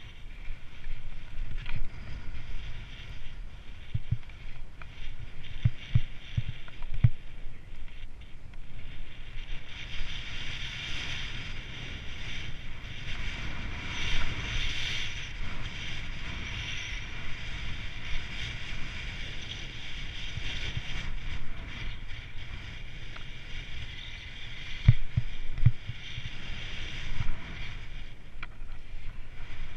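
Skis sliding and carving over snow at speed, with wind rushing over the helmet camera's microphone: a steady hiss that swells in the middle. There are a few short low thumps from bumps in the snow, two of them close together near the end.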